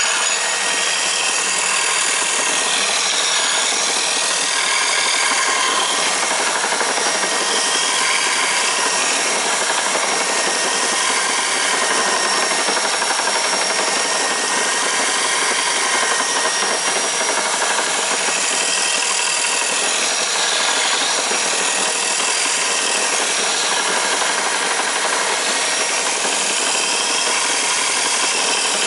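Electric drill spinning an abrasive sharpening attachment, grinding the bevels of an axe blade with a steady, unbroken grinding. The drill runs at low speed, so no sparks fly and the steel is not overheated.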